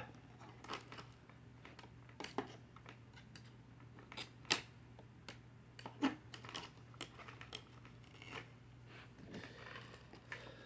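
Scattered light clicks and scrapes of hands working at a Shark vacuum's brush roll, pulling and picking wound-up hair off it, over a steady low hum.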